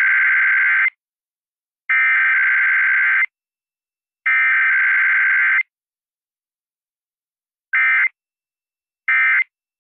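Emergency Alert System SAME digital header: three data-tone bursts of about a second and a half each, a second apart. After a pause come two short end-of-message bursts. With no attention tone between header and end-of-message, it is the coded sequence of a required weekly test.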